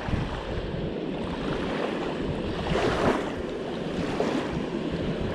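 Wind buffeting the microphone over the rush of river water at the bank: a steady noise with uneven low rumbling that swells about three seconds in.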